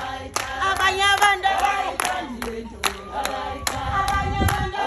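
A group of women singing together with steady hand-clapping in time, about three claps a second.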